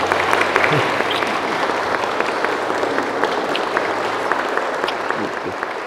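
A crowd of people applauding steadily.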